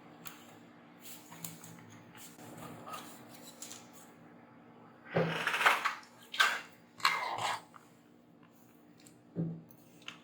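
Handling noises at an electronics workbench: a few short scratchy sounds, then three rough scraping or rustling bursts about halfway through and a short one near the end, over a faint steady hum.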